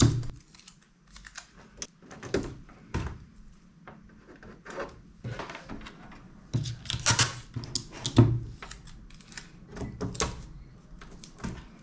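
Irregular clicks, taps and knocks of a screwdriver and loose screws being handled against a TV's plastic back cover, with light rustling of paper and tape as the screws are stuck to a sheet. A few sharper knocks stand out about two-thirds of the way through.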